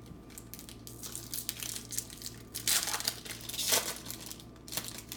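Trading card pack wrapper crinkling as it is torn open, with the loudest crackles about three and four seconds in.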